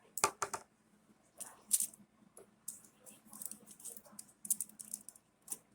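Scattered sharp clicks and taps of small objects and tools being handled, a few louder than the rest, over a low background.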